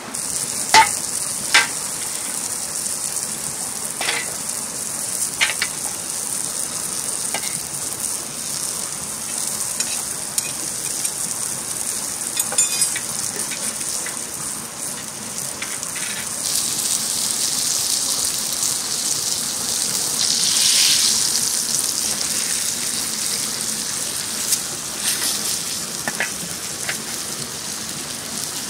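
Food sizzling steadily on a hot cooking stone, with scattered sharp pops and a swell of louder sizzling about two-thirds of the way through.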